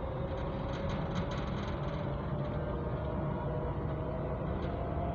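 Copenhagen Metro train running through a tunnel, heard from inside the car: a steady low rumble of wheels on rail with a motor whine that slowly rises in pitch.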